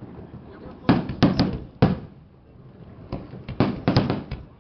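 Fireworks shells bursting: four sharp bangs about a second in, then a faster run of about six bangs between three and four and a half seconds.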